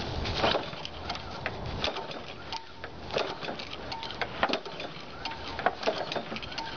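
Honda GCV160 lawn mower engine being pull-started with the choke on. The recoil starter is yanked in a series of short, rattling pulls, and the engine does not catch.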